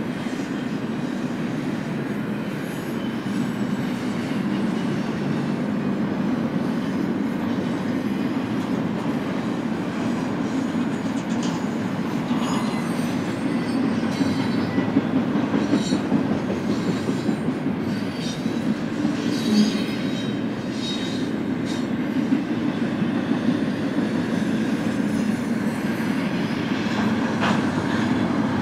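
Double-stack intermodal well cars rolling past at speed: a steady rumble and clatter of steel wheels on the rails, with brief faint high squeaks from the wheels in the middle stretch.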